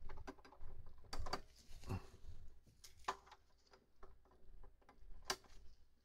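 Flush cutters snipping the excess leads of a newly soldered capacitor on a circuit board: a few sharp clicks, the loudest near the end, among small handling taps.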